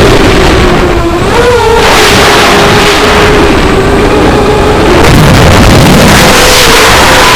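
FPV racing quadcopter's brushless motors and propellers whining as throttle changes, with a loud rush of air noise. The pitch dips about a second in, climbs back, holds steady, then rises a little around five seconds in.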